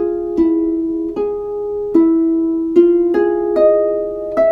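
Slow plucked-string music: single ringing notes struck about every three-quarters of a second, with a couple of quicker notes near the end.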